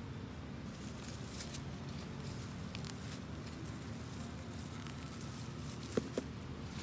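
Radishes being pulled by hand from a raised garden bed: leaves and stems rustling, with faint scattered clicks. Two short knocks close together about six seconds in.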